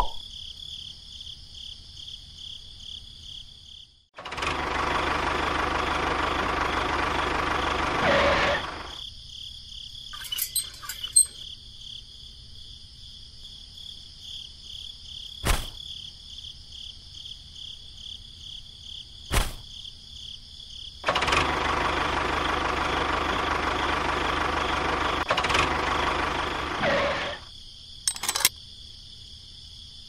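A small electric motor runs twice, each time for about five seconds, starting abruptly and winding down at the end. A few sharp clicks fall in between.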